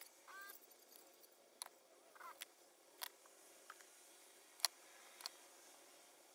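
Near silence with a handful of faint, sharp clicks and a couple of brief squeaks as hands handle and bend the wired branches of an eastern white cedar bonsai.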